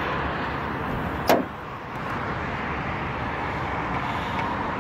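Mercedes-Benz 300CD Turbodiesel's five-cylinder turbodiesel engine running steadily, with a single sharp knock about a second in.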